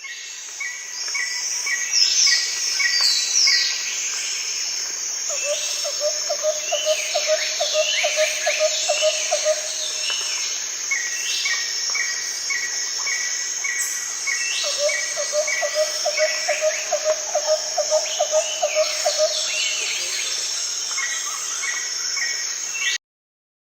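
Rainforest chorus of insects and birds: a steady high insect drone with many bird chirps and sweeping calls over it, including runs of evenly repeated chirps. A low, rapid pulsed trill lasting about five seconds comes twice, about a quarter and three quarters of the way through.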